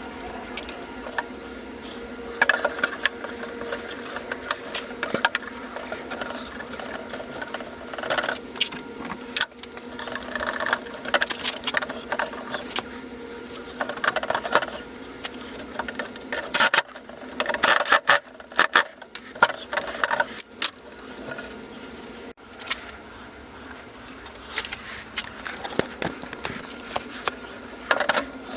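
Workshop handling sounds: many sharp clicks, knocks and rattles, with several short bursts of clatter, over a steady low hum.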